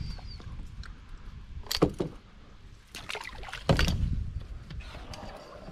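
Knocks and water splashes from a canoe, loudest about two seconds in and again from about three to four seconds in, over a low rumble.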